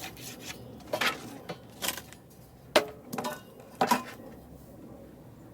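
Four sharp metallic clinks and knocks, about a second apart, each ringing briefly, as metal tools or parts are knocked together or set down.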